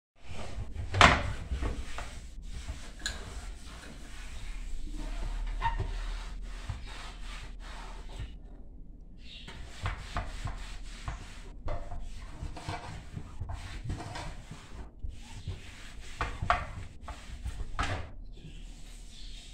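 A cloth rubbing and wiping over a window pane and frame in quick, irregular strokes, with a sharp knock about a second in and a short pause in the wiping a little before halfway.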